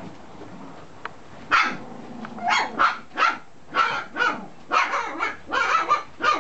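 Long-coated Chihuahua puppy barking in quick, high-pitched yaps, about a dozen of them, starting about a second and a half in. A single sharp click comes just before the barking.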